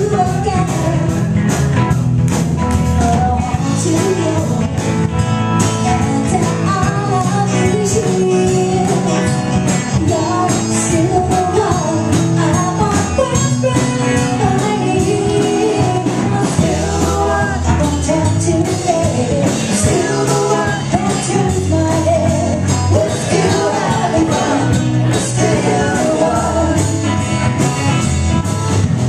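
Live rock band playing a song: a singer at the microphone over electric guitars and a drum kit, with a steady beat.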